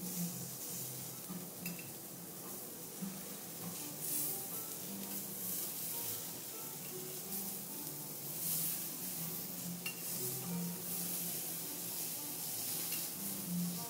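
Vegetables sizzling on a steel teppanyaki griddle as a chef's spatula and knife slide, scrape and tap on the hot plate, cutting and turning shiitake mushrooms. The hiss swells and fades, with a few sharp metal clicks.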